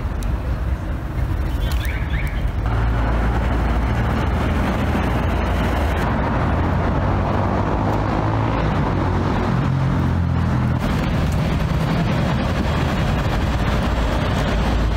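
A motor vehicle running: a steady low rumble of engine and road noise that gets louder about three seconds in, its engine note shifting a little in pitch near the middle.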